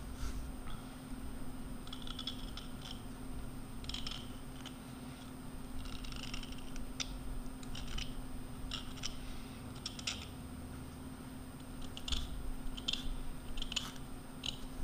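A Noga hand deburring scraper scratching the sharp edge of a bronze bushing's bore, taking off the lip rolled over from turning. It goes in short scratchy strokes a second or two apart, coming closer together near the end.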